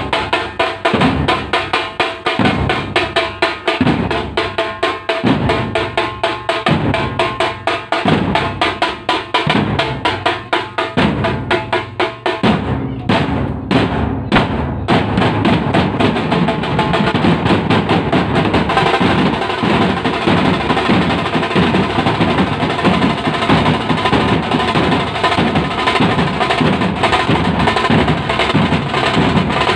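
A troupe of drummers playing strapped-on stick drums and a large bass drum together, in a steady pattern with a heavy low beat a little more than once a second. About twelve seconds in, the beat gives way to a fast, continuous roll on all the drums.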